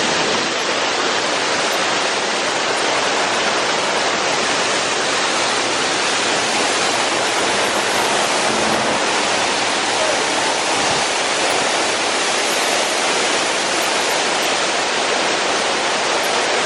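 Steady, loud rushing of water from an artificial waterfall and stream channels on a mini-golf course.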